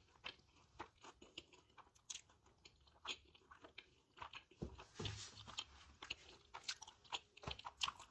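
A person chewing a mouthful of crispy fried chicken sandwich close to the microphone: soft, irregular crunches and wet mouth clicks, several a second.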